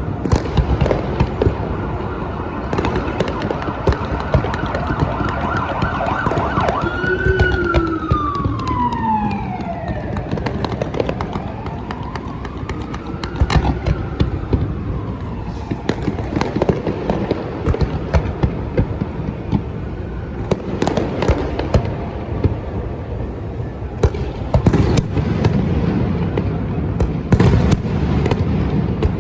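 Fireworks bursting with a string of sharp bangs while a siren wails, its pitch held, then falling and rising slowly. The bangs come thicker in the last third.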